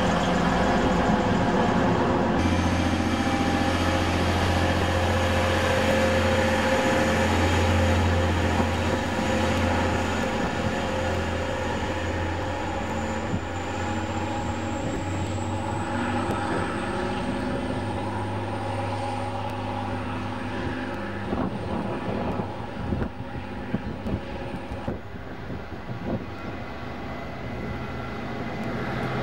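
Class 185 Desiro diesel multiple unit running past close by: a steady low diesel engine drone that fades over the second half, with a thin high whine that rises about halfway through and then holds.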